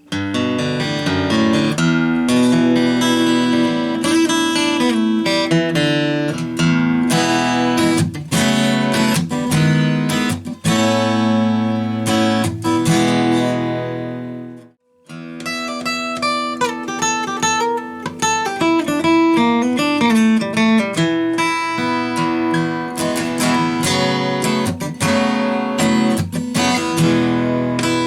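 Acoustic guitar playing, strummed chords mixed with picked notes, with a short break about halfway through before the playing resumes.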